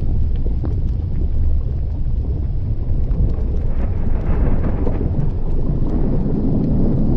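Volcanic eruption: a deep, steady rumble from the vent, with a brighter rushing surge about four seconds in and faint scattered crackles.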